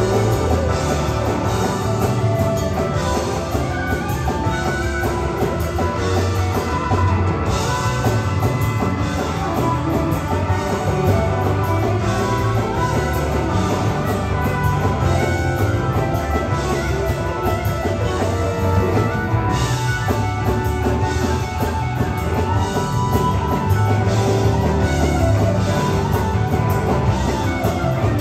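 Live rock band playing, with a Stratocaster-style electric guitar taking the lead in bending melodic lines over a drum kit.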